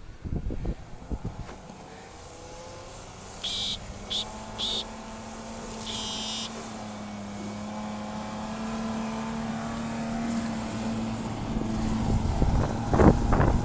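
Toyota 4x4 pickup's engine pulling under load as the truck ploughs through deep snow, steady in pitch and growing louder and slightly higher as it approaches. A few short high-pitched squeaks come about a third of the way in. Near the end, loud buffeting and knocks as the truck passes close and throws snow.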